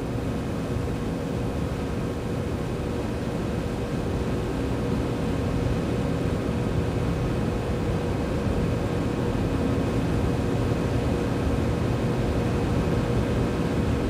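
Steady hiss with a faint, even hum throughout, and no distinct clicks or knocks from the hand threading of the valve stem.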